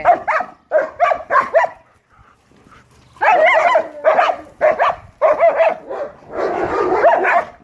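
Two German Shepherds squabbling, barking and yapping at each other in short bursts. They pause briefly about two seconds in, then start again louder, with one longer drawn-out call near the end.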